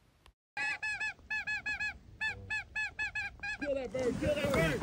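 Snow geese calling: a rapid run of short, high yelping notes starting about half a second in, followed near the end by lower, rougher calls.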